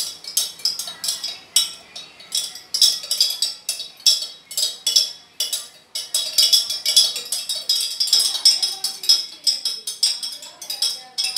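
A spoon stirring lassi in a jug, clinking against its sides several times a second in an uneven rhythm.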